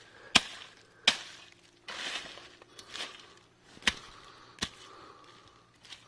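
Chopping strokes cutting down clumps of grassy weeds: four sharp, irregularly spaced strikes, with rustling of the cut plants between them.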